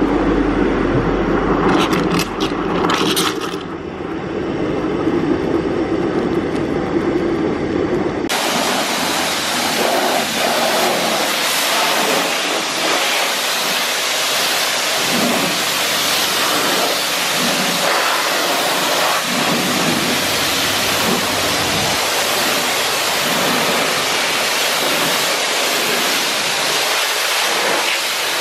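A pressure-washer lance jets water into a bucket of car shampoo, making a low churning rush. About eight seconds in, it switches abruptly to the lance's spray striking a car's paintwork, a steady, hissing rush.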